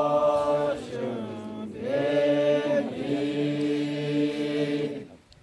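Makury Naga men's choir singing unaccompanied in three-part harmony: a long held chord ends about a second in, and after a short downward slide a new chord swells in and is held until it stops shortly before the end.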